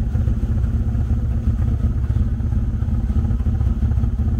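Car engine idling at the twin-tip exhaust with a low, uneven beat. It is the rough running of an engine with a misfire from bad ignition coils.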